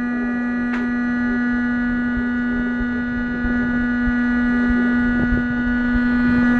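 Loud, steady electrical hum: one low tone with a string of higher overtones, growing slowly louder, with a faint click about a second in.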